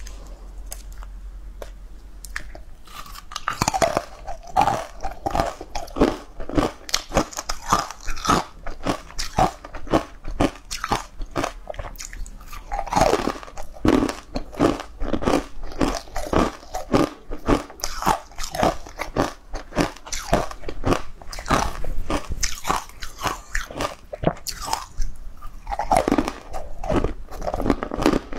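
Close-miked biting and crunching of frozen green ice blocks, with chewing between bites. Quiet at first, the crunching starts about three seconds in and goes on in dense runs of sharp cracks, with heavier bites near the middle and near the end.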